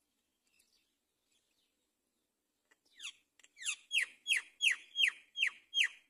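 Great myna nestlings begging in the nest: a run of about nine short calls, each sliding down in pitch, starting about three seconds in and coming about three a second as they grow louder.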